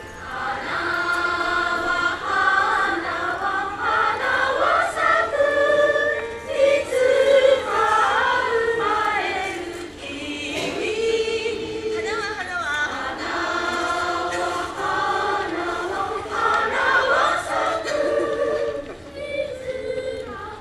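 A choir singing: several voices hold long notes and slide slowly in pitch, with a brief drop in level about ten seconds in.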